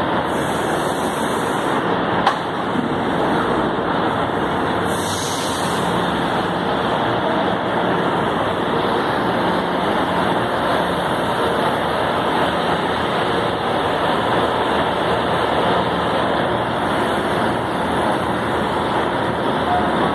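Steady running noise of a Mafersa-built São Paulo Metro train standing at the platform with its doors open, its onboard equipment running. A single click comes about two seconds in, and there are two brief high hisses, one near the start and one about five seconds in.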